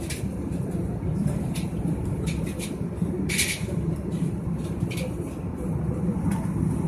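Steady airliner cabin noise in flight: an even low rush of engines and airflow, with a few short high hisses over it.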